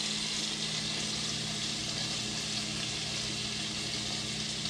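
Toasted sesame oil and minced garlic sizzling steadily in a frying pan, with a low steady hum underneath.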